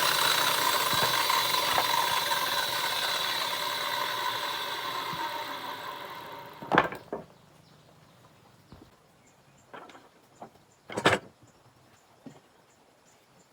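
A woodworking power tool winding down after being switched off, its whine falling and fading over about six seconds. Then come a few sharp knocks and clacks, two of them louder, about seven and eleven seconds in.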